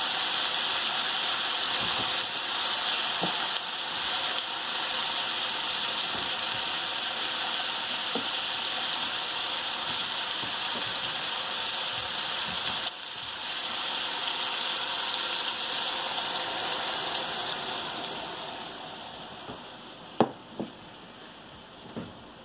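Chicken and adobo pork belly sizzling in oil in a wok: a steady hiss that fades over the last few seconds, with a few sharp pops near the end.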